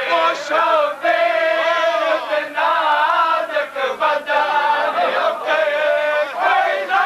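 Men's voices chanting a noha, a Shia mourning lament, in a sustained melodic chant with a crowd singing along.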